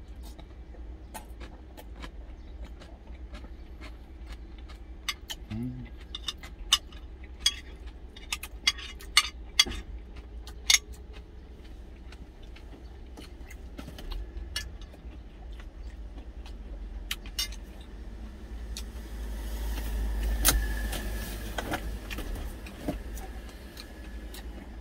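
Metal spoon clinking and scraping against a glass food container in sharp ticks, over a steady low hum. About nineteen seconds in, a louder rushing noise swells and fades over a few seconds.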